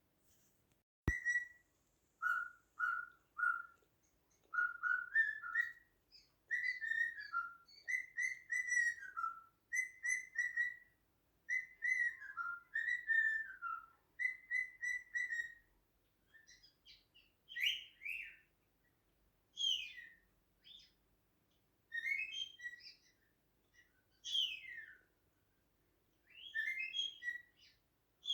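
Cockatiel whistling runs of short clear notes, rising and repeating like a tune, then from about halfway switching to a string of sharp calls that fall in pitch, every couple of seconds. A short click about a second in.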